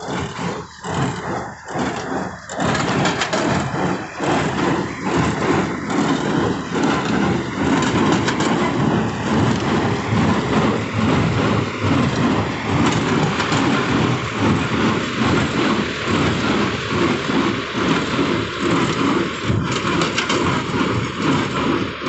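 Tractor engine running under load while it drives a PTO-powered square baler picking up and compressing dry sugarcane leaves, a dense steady machine din. A regular knocking beat stands out in the first couple of seconds.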